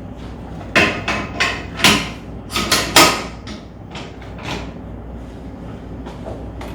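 A quick run of about seven sharp clunks and knocks from a chiropractic treatment table being set up for flexion distraction, then a few fainter knocks.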